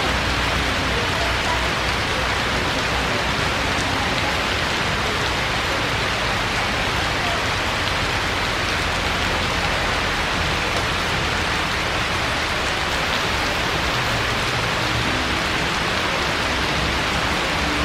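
Steady rain falling, an even, unbroken wash of noise.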